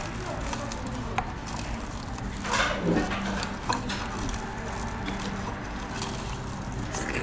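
A person eating: quiet chewing with a few light clicks of utensils and a short louder noisy sound about two and a half seconds in, over a steady low hum.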